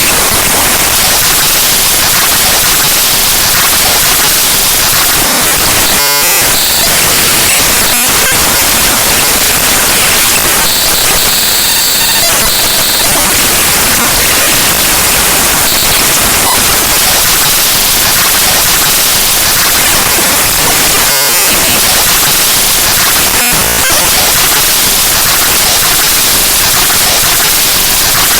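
Windows File Explorer's program file played back raw as audio by Binary Waterfall: a loud, harsh wall of digital static. It shifts in texture now and then, with brief dips in the low end about six seconds and twenty-one seconds in, and a brighter, hissier stretch around the middle.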